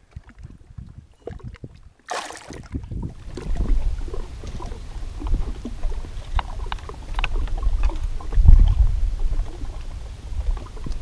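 Wind buffeting the microphone, starting about two seconds in: an uneven low rumble that swells and eases, loudest about eight and a half seconds in. A few light clicks sound over it.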